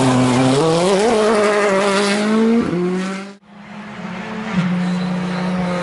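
A rally car engine accelerating hard out of a corner, its revs climbing, then a gear change about two and a half seconds in. The sound briefly drops almost away, then an engine comes back at steady revs, with one drop in pitch near the end.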